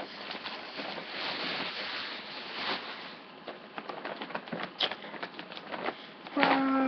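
Rustling and crinkling of clothing and shopping bags being handled, with scattered light clicks and knocks. Near the end a steady pitched hum starts.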